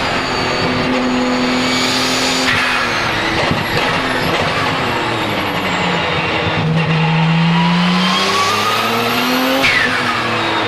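Porsche 997 GT2 RSR's twin-turbo 3.9-litre flat-six heard onboard, pulling hard with the turbos whistling. About two and a half seconds in, and again near the end, the throttle lifts and the whistle falls away sharply with a blow-off rush. In the middle the engine note drops low, then climbs steadily from about seven seconds as the turbo whistle rises with it.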